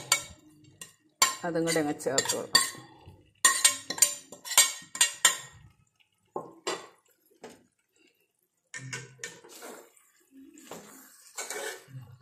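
Steel ladle clinking and scraping against a metal plate and a metal kadai as fried onions are scraped into the chicken roast. It is dense with clinks for the first half, sparse for a couple of seconds, then scrapes again as the ladle stirs the pan.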